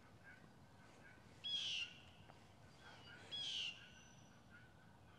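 A bird's harsh call, twice, each about half a second long and about two seconds apart, with faint, softer chirps between.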